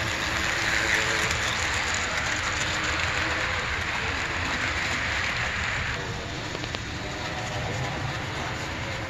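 Varney HO scale Northern steam locomotive and its passenger cars running along the model track, a steady rolling of small wheels on rail with the locomotive's motor. It is louder while the train passes close by, and drops off about six seconds in.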